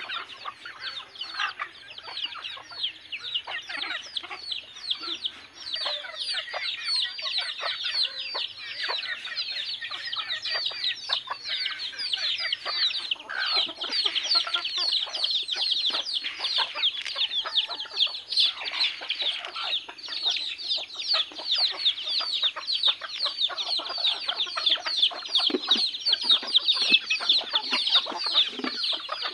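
A flock of native chickens calling: a dense, constant stream of high, quick peeps over scattered hen clucks, a few lower calls standing out near the end.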